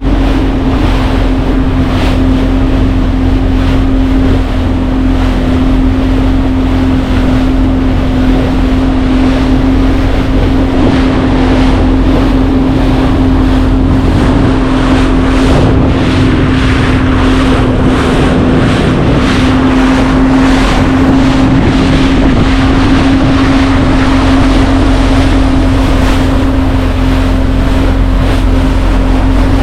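Boat engine running at a steady speed, with wind buffeting the microphone.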